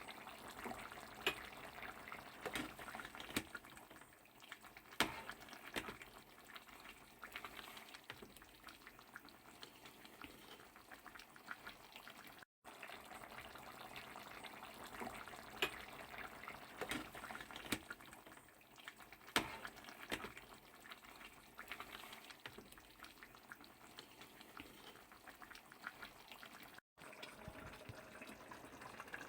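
Pot of beef stew simmering, a soft steady bubbling with scattered small pops.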